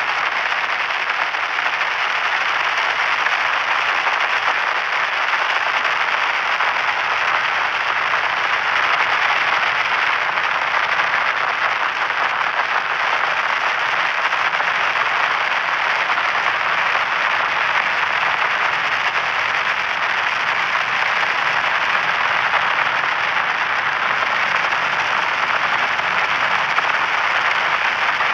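Continuous white-noise static: a steady, even hiss centred in the middle of the range, with little bass or top end.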